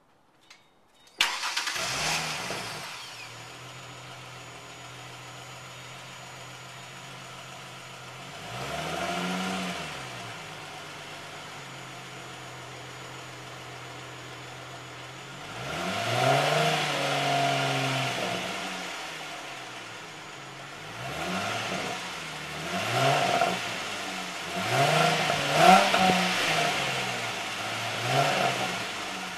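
2008 Ford Mustang's 4.0-litre V6 starting about a second in with a flare of revs, then idling steadily. It is revved briefly at about nine seconds, held up longer at about sixteen seconds, and blipped several times in quick succession over the last eight seconds.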